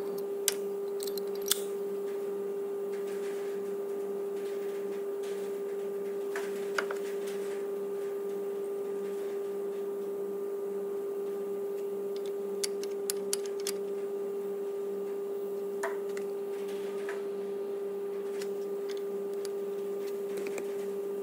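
A steady hum at one pitch with its overtones, over which come a few light clicks and taps as a brake pad is handled and fitted into the caliper carrier, with a small cluster of clicks about two-thirds of the way through.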